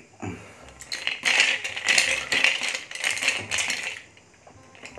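Ice clinking against the sides of a glass jar of iced lemon tea as a straw stirs it: a dense rattle that starts about a second in and stops about a second before the end.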